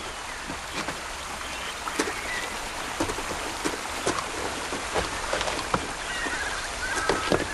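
Jungle creek trickling over stones, with scattered small knocks. A faint chirping comes in about two seconds in and again near the end.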